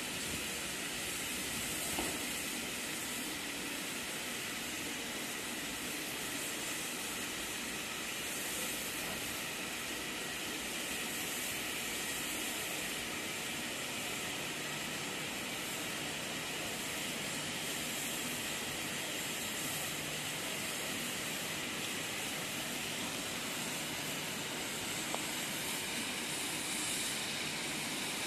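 Steady hiss of steam from the standing LMS Royal Scot class 4-6-0 steam locomotive 46115 Scots Guardsman.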